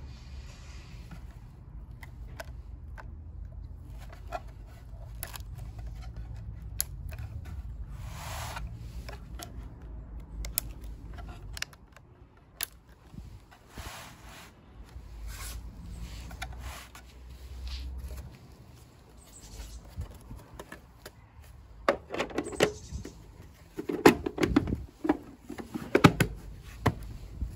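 Plastic battery box of a Pride Go Go Elite mobility scooter being handled: scattered small clicks and scrapes of plastic and battery connectors, then a run of louder plastic knocks and rattles over the last few seconds as the cover is pressed on.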